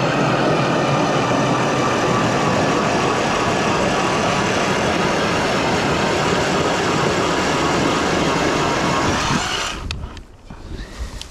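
ION electric ice auger drilling through ice, its motor running at a steady pitch over the grinding of the bit. It shuts off near the end, leaving a few soft knocks.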